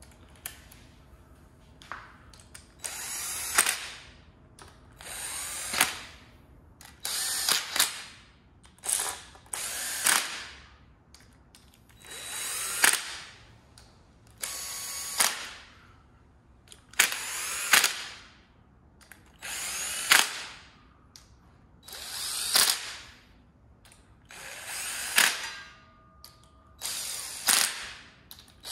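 Cordless drill running oil-pan bolts into an LT4 engine block. It comes in short spins of about a second, about a dozen times, each whine rising as the drill spins up, with sharp snaps as a bolt is snugged down.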